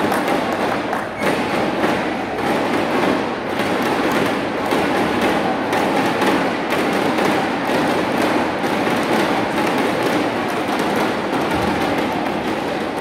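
Spectator crowd noise: a steady din thick with many quick, overlapping claps and thumps from the stands.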